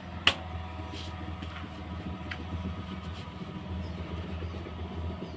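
Fresh leaves being handled and pulled from their stems: one sharp snap about a third of a second in, then a few fainter crackles, over a steady low hum.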